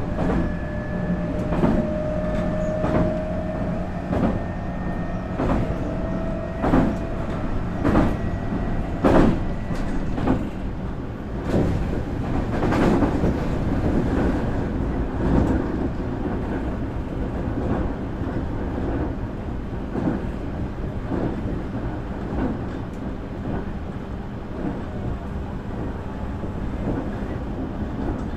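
Nankai 8300 series electric train heard from inside a motor car running at speed: steady wheel-on-rail rolling noise with the clickety-clack of rail joints about once a second. A faint rising whine from the IGBT VVVF inverter and traction motors fades out about ten seconds in, leaving only the rolling noise.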